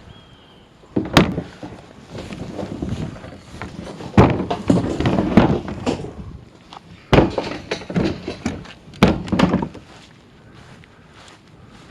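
Trash cans being righted and handled: a series of hollow thunks and knocks, about four loud ones a couple of seconds apart, with scraping and rustling between them.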